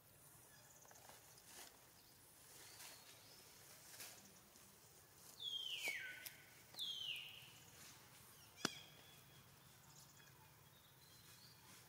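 Two high animal calls a little over a second apart, each falling steeply in pitch with a short held end, over a quiet outdoor background. A single sharp click follows about a second later.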